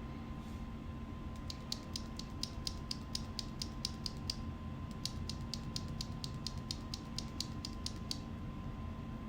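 Small sharp clicks in a fast, even run, about seven a second, in two stretches of about three seconds with a short break between. The source is Gateron Ink Black V2 mechanical keyboard switches being worked by hand while they are lubed.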